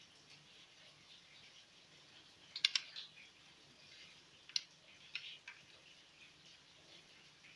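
Small sharp clicks of a Jackly JK-6022 precision screwdriver set being handled, metal bits and handle against its plastic case. A quick cluster of clicks comes about two and a half seconds in, then three single clicks spaced over the next three seconds.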